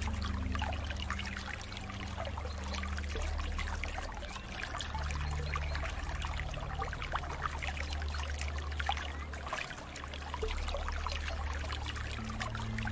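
Water flowing and splashing steadily, a dense patter of small splashes and trickles over a steady low hum.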